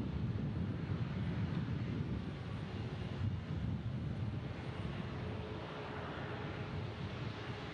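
Boeing 737 airliner's jet engines rumbling as it rolls along the runway: a deep, steady rumble that eases slightly toward the end.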